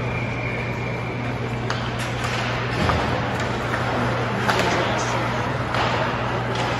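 Ice hockey play heard from the stands of an indoor rink: a scatter of sharp clacks from sticks and puck, over a steady low hum, with scattered voices.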